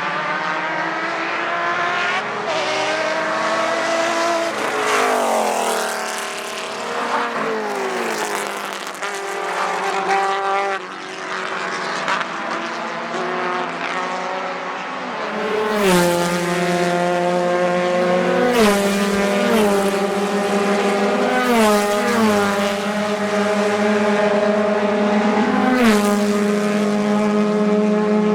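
Racing car engines at full throttle. In the first half several cars go by, each note falling in pitch as it passes. Then one engine pulls hard through the gears, its note climbing and dropping at three or four upshifts, with a sharp crack at some of the shifts.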